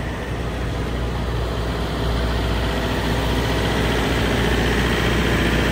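City street traffic with a heavy vehicle's engine running close by, growing louder about two seconds in.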